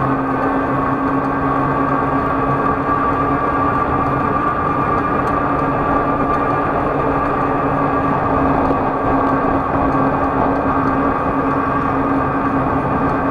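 A vehicle engine running steadily at an even speed, with a constant hum and noise and no change in pitch.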